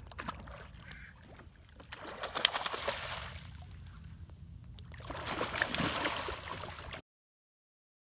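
Bluefish splashing and thrashing at the water's surface as they feed: two bouts of splashing, one about two seconds in with a sharp slap, another about five seconds in, over a steady low rumble. The sound cuts off suddenly near the end.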